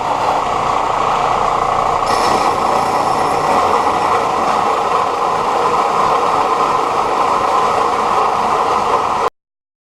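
Belt sander running with a worn belt, grinding steel to clean up a saddle cut; a steady, loud grinding whir that cuts off abruptly about nine seconds in.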